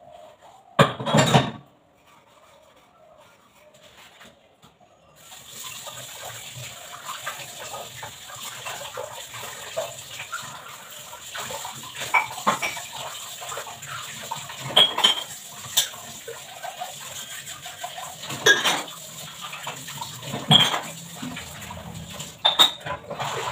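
Dishes being washed under a running kitchen tap: metal utensils clink and clatter against each other and the sink, some ringing briefly. A loud clatter comes about a second in, and the water starts running about five seconds in and keeps on under the clinks.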